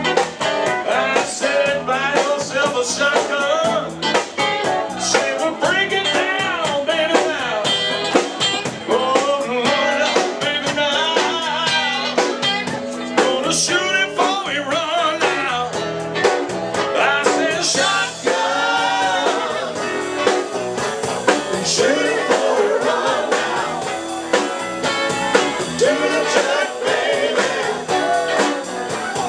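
Live rock band playing: a singer over electric bass, electric guitar and a drum kit keeping a steady beat.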